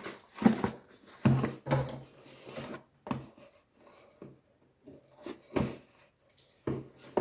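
A delivery package being handled and opened: an irregular run of knocks, scrapes and rustles of packaging.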